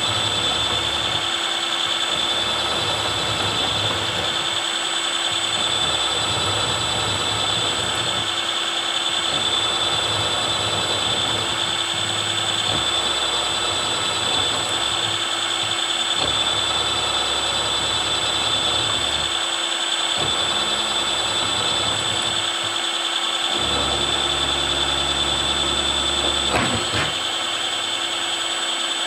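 Milling machine running with a 6 mm end mill plunge-cutting a slot: a steady spindle whine over rough cutting noise, with a low rumble that comes and goes every few seconds as the cutter plunges and steps across.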